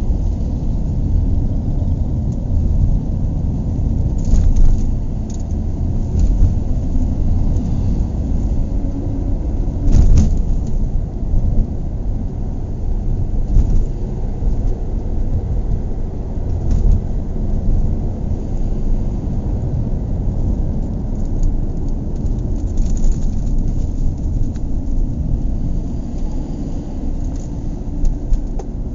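Car interior while driving: steady low road and engine rumble heard from inside the cabin, with a few brief bumps or knocks, the most marked about ten seconds in.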